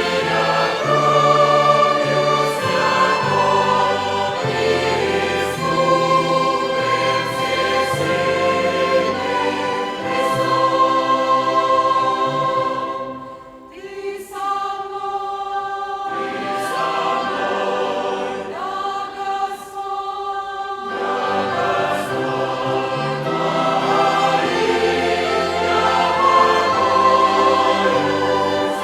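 Church choir singing a hymn in Russian, accompanied by a violin ensemble, with a short lull between phrases about halfway through.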